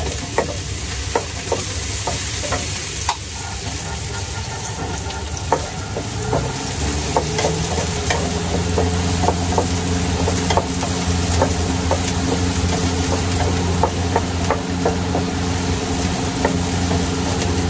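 Food sizzling in a frying pan over a gas flame while a wooden spatula stirs it, with frequent light clicks and taps of the spatula against the pan. A low steady hum grows stronger about six seconds in.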